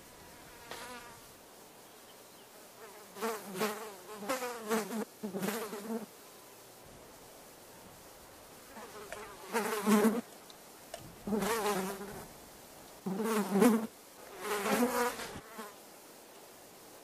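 Flies buzzing in about five separate bursts of a second or two each, the pitch wavering.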